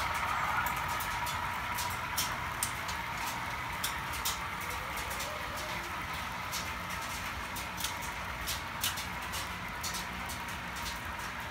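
HO scale model freight cars rolling past on the track: a steady rolling rumble with light, irregular clicks from the metal wheels crossing rail joints, several a second.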